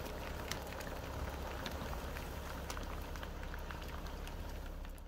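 Vehicle engine idling as a steady low hum, with scattered light clicks of bison hooves walking on the asphalt.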